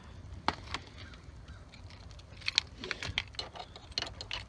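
Light handling noise: keys jangling with scattered small clicks, a couple early and a denser run in the second half, as a key is put into a truck's ignition.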